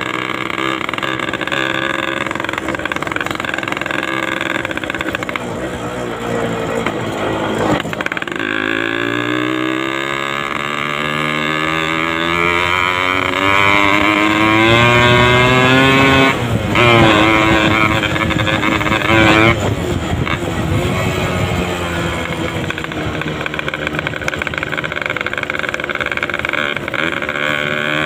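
Yamaha RX-King two-stroke motorcycle engine under way, its pitch climbing as it accelerates. It breaks off briefly at a gear change about eight seconds in, climbs again to a high steady pitch, then drops back about two-thirds of the way through and runs lower.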